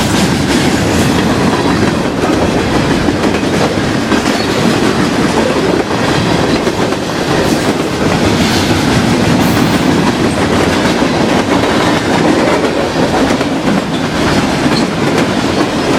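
Freight cars of a CN manifest train rolling past close by: a loud, steady rumble of steel wheels on the rails.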